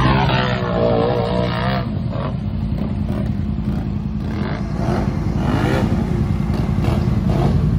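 Off-road four-wheeler engines running and revving, their pitch swinging up and down in places.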